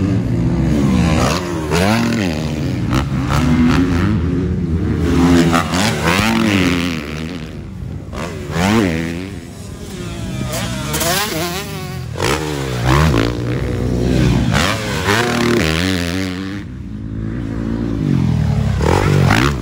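Motocross bike engines revving hard as they ride, the pitch climbing and dropping again and again.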